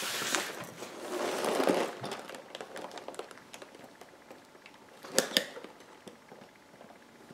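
Cardboard LEGO set box being handled and its end flap worked open by hand: a sliding, rubbing sound for the first two seconds, light scratches and ticks, then a couple of sharp snaps about five seconds in.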